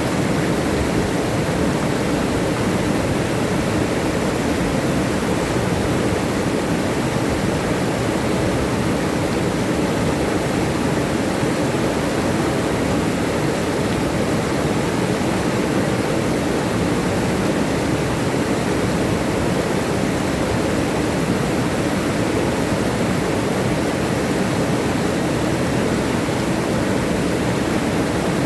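River water rushing and tumbling over rocks, a steady even rush with no change.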